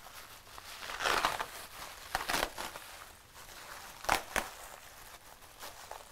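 Plastic packing wrap around foam being pulled open and folded back by hand, crinkling in bursts. Two sharp crackles come about four seconds in.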